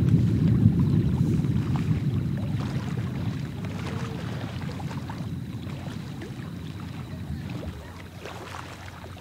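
Fireworks heard from across the water: a low rolling rumble with faint crackling, fading steadily away.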